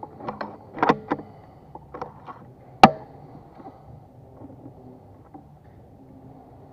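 A PCP air rifle fires a single shot about three seconds in: one sharp, loud crack. It comes after a short run of clicks from handling the rifle's action in the first second or so.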